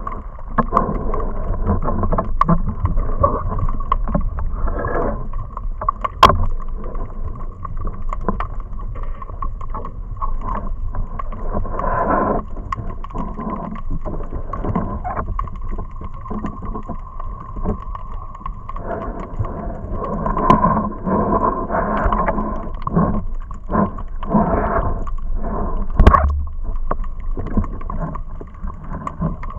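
Muffled underwater noise picked up through an action camera's waterproof housing: water moving past, with occasional sharp clicks, the loudest about six seconds in and another near the end.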